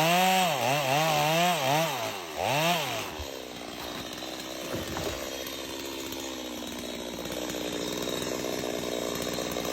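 Chainsaw engine revving up and down for about three seconds, then settling to a steady, quieter speed. A single knock comes about five seconds in.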